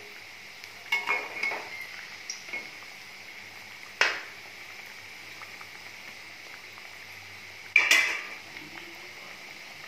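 Metal slotted spoon clinking and scraping against the kadhai as kachoris are turned over in hot oil, over the steady sizzle of deep frying. Sharp clinks come about a second in, at about four seconds and near eight seconds.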